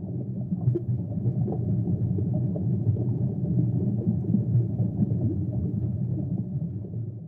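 Underwater ambience: a steady low rumble with many small scattered pops, like bubbles, dropping away near the end.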